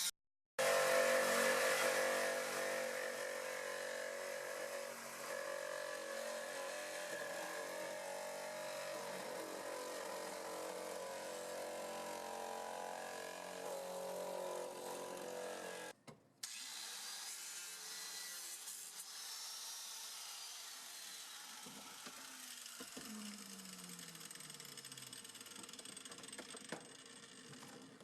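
A power tool cutting through the fiberglass body of a 1972 Corvette, running steadily in two long stretches with a short break about 16 seconds in. The pitch falls away around 23 seconds in as the tool slows.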